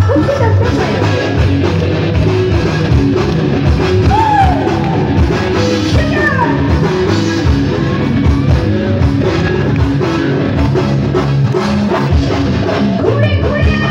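Live amplified band music: a woman sings into a microphone over drum kit, electric bass and guitar, with a steady beat.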